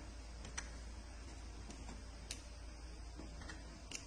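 Three faint, light clicks as the 3D printer's build plate is gripped and handled, over a low steady hum.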